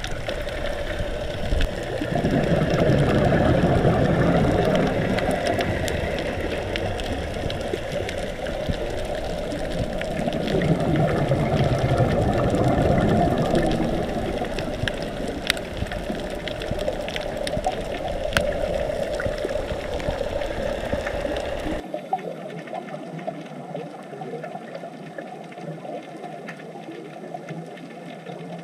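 Underwater recording: a steady rush of water noise with scattered faint clicks. About 22 seconds in the sound changes abruptly and loses its low rumble.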